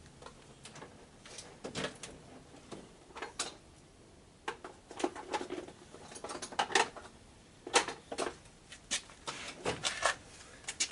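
Irregular metallic clinks, taps and knocks of hand tools being handled and set down while working on a small generator's carburetor and fuel line.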